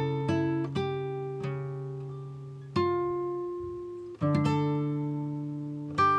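Background music: a plucked acoustic guitar playing slow notes and chords that ring out and fade before the next pluck.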